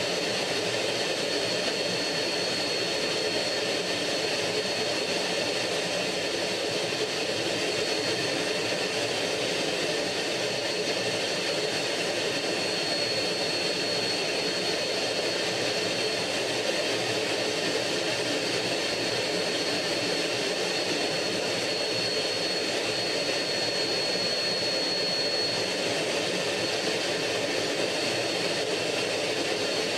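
MiG-15 jet fighter in flight heard from inside the cockpit: steady jet engine noise and rushing air, with a thin high whine, holding an even level with no change in power.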